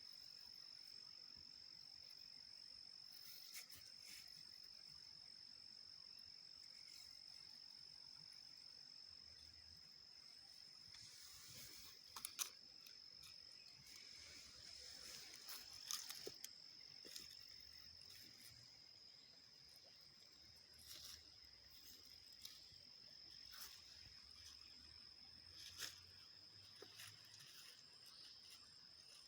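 An insect trilling: one steady, unbroken high-pitched note, with a few faint clicks and knocks scattered through.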